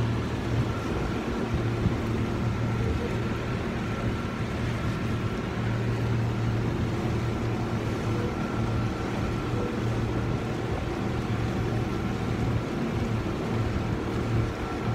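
An engine running at a steady speed: a low, even hum with a faint higher whine above it.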